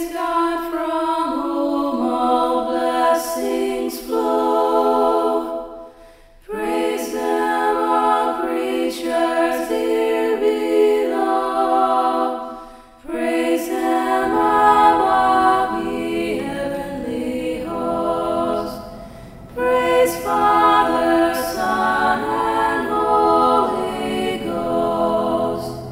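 A choir singing a cappella in sustained chords, in phrases with brief breaks about six and thirteen seconds in. Lower notes join about halfway through.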